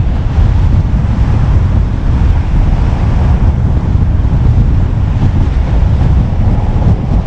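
A car driving along, heard as a steady low rumble of road and wind noise buffeting the mounted camera's microphone.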